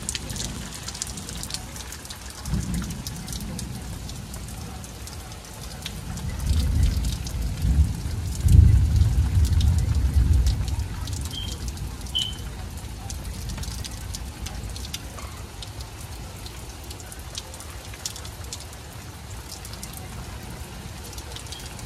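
Rain falling steadily with a constant patter of drops. A low rumble of thunder builds about six seconds in, is loudest around nine seconds, then fades.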